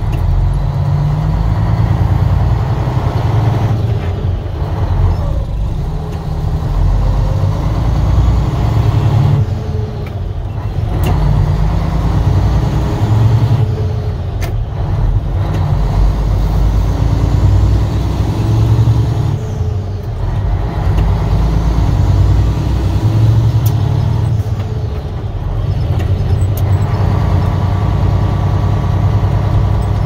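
A Mack tri-axle log truck's diesel engine running, heard from inside the cab while driving. Its note climbs and then briefly drops about every five seconds, as it works through the gears.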